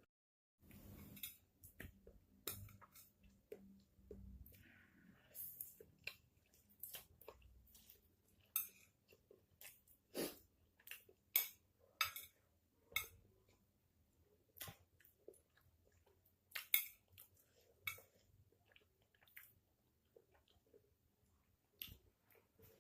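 A person chewing Mie Gaga extra-spicy jalapeño fried instant noodles close to the microphone, with irregular short wet mouth clicks and smacks and the occasional clink of a utensil on the dish.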